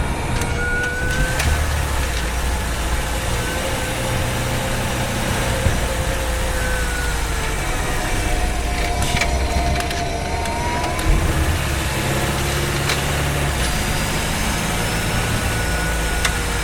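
Honda Freed Hybrid's powertrain heard from inside the engine bay while driving in town: a steady low rumble that swells and eases, with thin whining tones gliding slowly up and down in pitch and a few light clicks.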